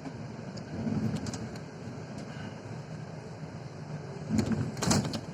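Bus cabin noise on the move: a steady low engine and road rumble, with light rattles and a few louder knocks near the end.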